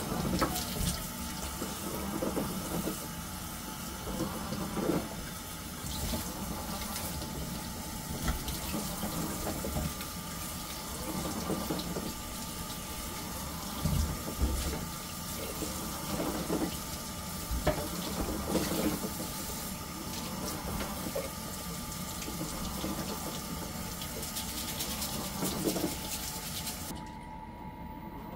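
Water running from a washbasin tap into the sink, splashing unevenly, until the tap is shut off about a second before the end.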